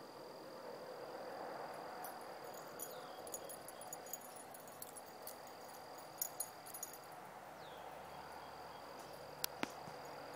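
Insects trilling steadily on one high pitch, in long stretches with short breaks, over faint outdoor background noise. Light scattered clicks come in the middle, and two sharp clicks near the end.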